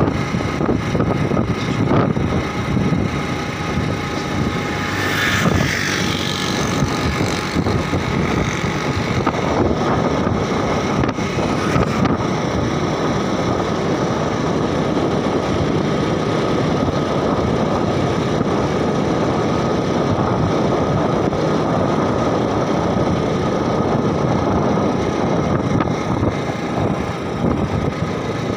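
Motorcycle engine running steadily while riding along a road, with wind rushing over the microphone.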